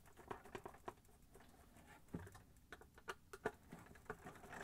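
Faint, irregular small clicks and taps of hands handling a plastic refrigerator control panel while screws are taken out, over near silence.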